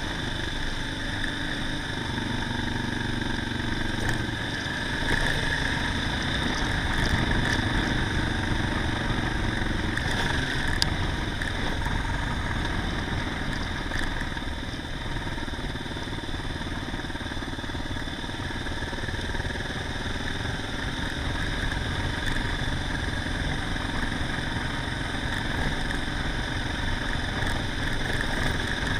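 Motorcycle engine running steadily while the bike rides along, heard from a camera mounted on the moving motorcycle.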